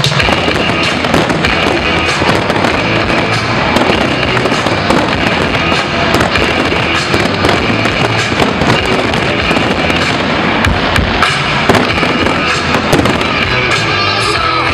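Fireworks display going off in a dense, continuous barrage of bursting shells and crackles, with music playing beneath. Two sharper bangs stand out in the last few seconds.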